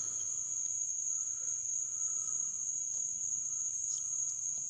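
Steady, high-pitched trilling of crickets at night, with a few faint clicks.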